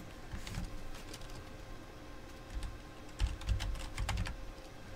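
Typing on a computer keyboard: irregular keystrokes, with a quicker run of clicks about three seconds in.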